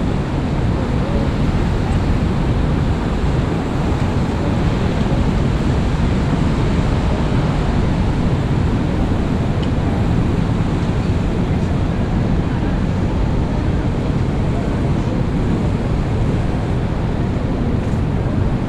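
Steady city street noise on a rainy day: traffic on wet roads with a constant low rumble, no single event standing out.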